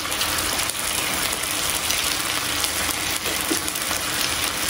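Food frying in a hot pan, a steady sizzling hiss with a few faint crackles.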